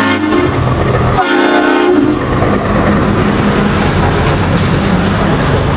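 Heavy-vehicle sound effect: two blasts of a deep, multi-tone horn, the second one shorter, then the steady rumble of a big vehicle running.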